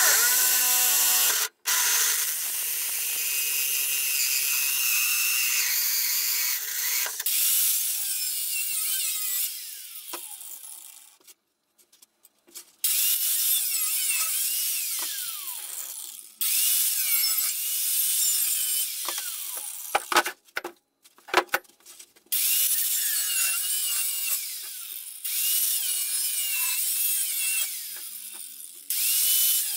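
An electric drill boring a small hole through the thin steel wall of a 2 kg propane-butane bottle, then an angle grinder cutting around the bottle's steel shell to take off the top. The grinder stops and starts several times, its pitch sliding up and down as it bites into the metal.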